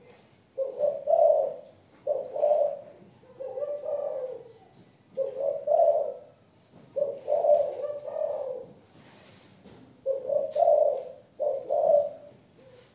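Young female spotted dove of the Malaysian strain cooing: about seven low coo phrases, one every second or two, in the voice type that keepers call 'giọng thổ'.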